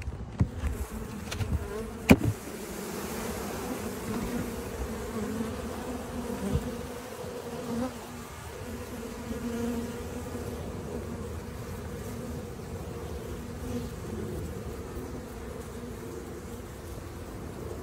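Honeybee colony in an opened hive, a dense mass of bees humming steadily. A few sharp knocks come in the first two seconds as the hive box is opened, the loudest about two seconds in.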